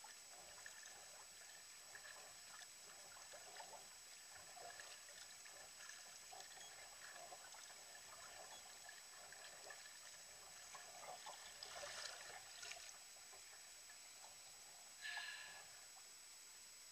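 Faint paddling of a sea kayak: the paddle blades dip into calm sea water and drip on each stroke. A louder splash comes around twelve seconds in, and a short one about three seconds later.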